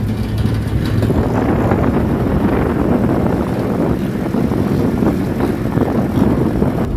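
A Jeep driving along, its engine running with road rumble and wind on the microphone, steady throughout.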